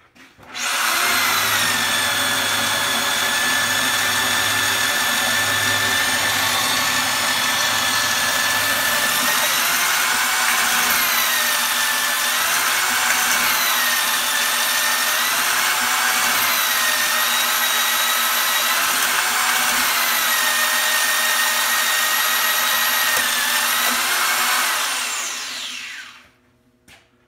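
Tube notcher's motor-driven hole saw spinning up and cutting into square tube, a loud steady whirring with a high whine. From about a third of the way in, the pitch dips and recovers about every two seconds as the feed is pulsed to clear the chips. Near the end it winds down with a falling whine and stops.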